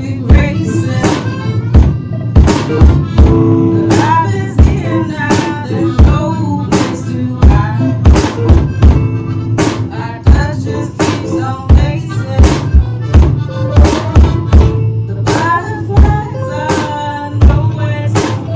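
Small band playing live without vocals: drum kit keeping a steady beat under bass, guitar and a reedy accordion.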